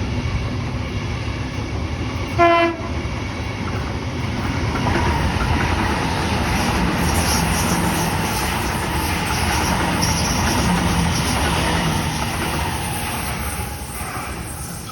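Train sounding one short horn blast about two and a half seconds in, over the steady running noise of the train on the rails, which fades near the end.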